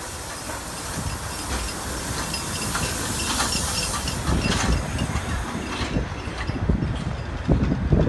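Steam locomotive SJ 1916 passing close by with a loud hiss of steam, then its passenger coaches rolling past, the wheels rumbling and clicking over the rail joints from about halfway on.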